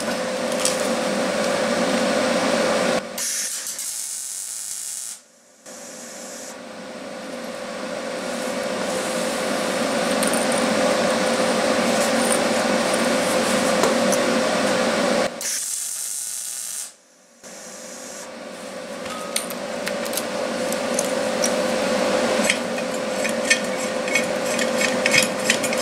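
MIG welding arc on steel, a steady hiss with a constant hum, welding in the nut-and-tube assembly. The arc stops twice, briefly going near-silent about five and seventeen seconds in.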